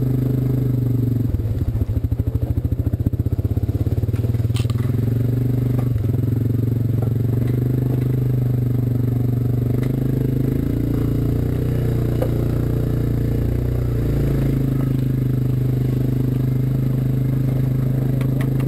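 ATV engine running steadily at low speed while towing another ATV over a gravel trail. About a second in, a fast rattling flutter joins it for a couple of seconds.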